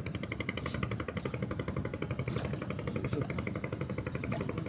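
An engine running steadily with a rapid, even beat.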